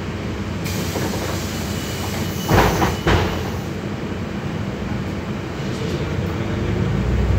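Cabin sound of a Solaris Urbino 12 IV city bus: the engine and drivetrain running steadily, with a hiss that begins about half a second in and stops after about three seconds. Two loud, short rushing noises come about two and a half and three seconds in, and the low rumble rises near the end.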